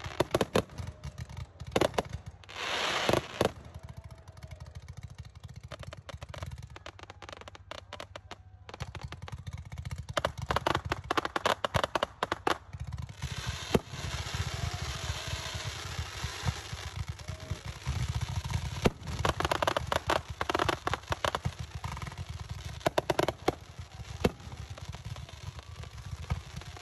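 Fireworks display: aerial shells bang and crackle as they burst, coming in rapid volleys, with a hiss about three seconds in.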